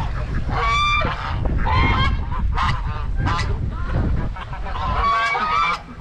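Geese honking, a run of five or six loud calls, with wind buffeting the microphone until it drops away near the end.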